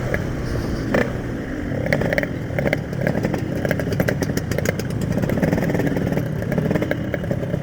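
Yamaha RX-King single-cylinder two-stroke motorcycle engine running on the move, its pitch rising and falling a little as the throttle changes.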